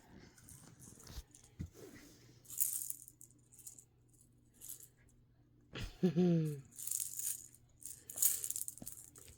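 A baby's toy shaker rattling in a few short bouts of shaking. A brief voice sound falls in pitch about six seconds in.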